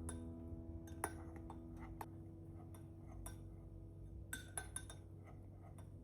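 A few faint, separate clinks of glass and kitchen utensils, the loudest cluster a little past four seconds in, over the slowly dying ring of a sustained musical chord.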